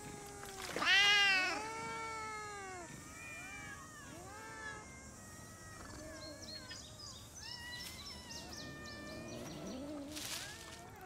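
A crowd of cats meowing at once, many overlapping calls that rise and fall in pitch, with one loud meow about a second in. Later the calls are shorter, and a brief rush of noise comes near the end.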